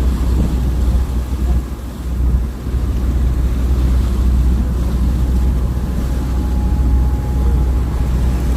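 Small boat's engine running steadily, a loud low rumble that dips briefly about two seconds in.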